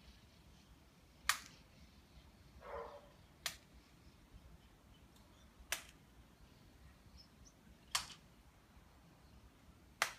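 A child's hands making five sharp smacks, evenly spaced about two seconds apart, with one softer, brief scuffing sound after the first.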